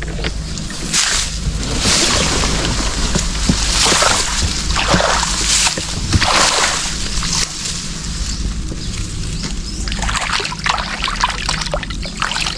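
Water sloshing and splashing in repeated surges about once a second, then smaller scattered splashes and knocks near the end, as water is churned around a small boat.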